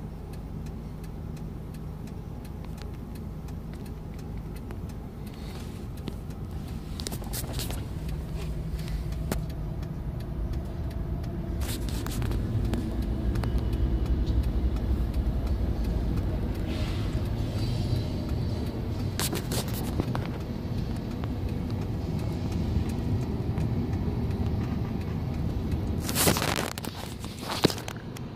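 Steady low rumble of car road and engine noise inside the cabin, growing louder about halfway through, with a few short clicks and knocks.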